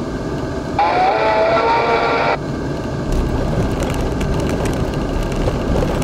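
Car driving slowly, with steady road and engine noise heard from inside. A wavering pitched tone sounds for about a second and a half starting about a second in. About three seconds in the low rumble grows heavier, with a light rattling of clicks, as the tyres run over a temporary steel bridge deck.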